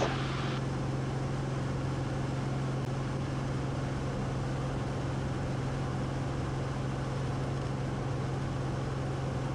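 The 1957 Cessna 180's six-cylinder Continental O-470 engine and propeller droning steadily in flight, heard from inside the cabin. A constant low hum sits under an even rushing noise, with no change in pitch or power.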